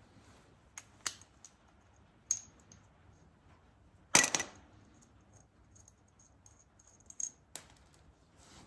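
Scattered light clicks and metallic clinks of small metal parts or tools being handled, with the loudest, a short clatter that rings briefly, about four seconds in.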